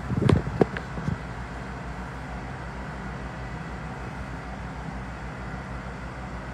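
Hydraulic passenger elevator running: a steady low hum and rumble inside the cab. A few sharp knocks and clicks come in the first second.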